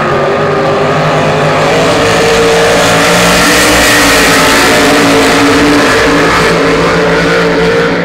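Three Cracker Box race boats' V8 engines running flat out together as they pass, the sound swelling to a peak about halfway through and easing off toward the end.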